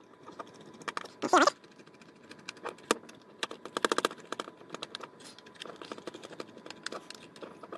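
Small clicks and ticks of a precision screwdriver working tiny Phillips screws out of a plastic mini projector case, the case being handled and turned. There is a quick run of ticks about four seconds in, and a brief pitched sound about a second and a half in.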